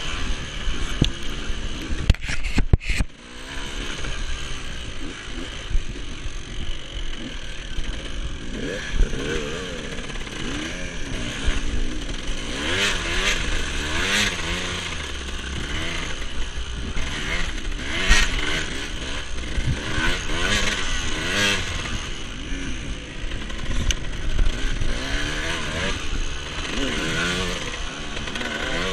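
Dirt bike engines revving up and down over and over, their pitch rising and falling with the throttle, with a few sharp knocks about two to three seconds in.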